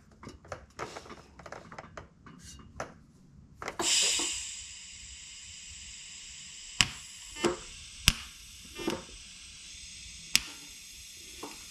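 Scattered clicks and taps, then about four seconds in a gas valve opens with a surge of hiss that settles into a steady hiss of purge gas flowing from a cylinder regulator through a back-purge line into a stainless downpipe before welding. A few sharp clicks sound over the hiss.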